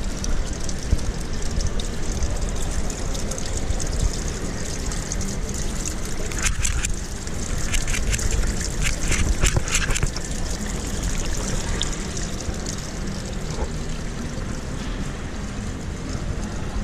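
Water falling from a rain-curtain fountain: a steady hiss of many drops pattering down, with a run of sharper crackling splashes about halfway through.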